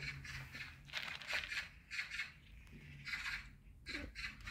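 Footsteps on grass and fallen leaves, a step roughly every half second to second.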